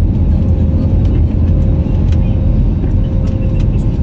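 Aircraft cabin noise in flight: a loud, steady low rumble of engines and airflow, with a faint steady hum above it.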